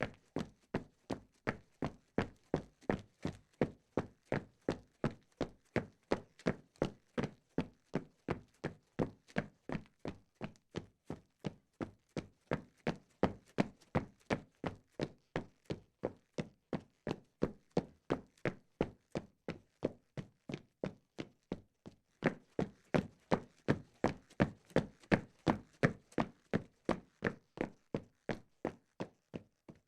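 Footsteps at a steady walking pace, about two dull steps a second, a little softer for a few seconds in the middle and then firmer again.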